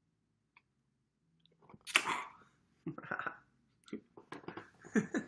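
Short, irregular bursts of breathy vocal noise and mouth sounds from people close to a phone microphone, after a near-silent start. The loudest burst comes about two seconds in, and more follow near the end.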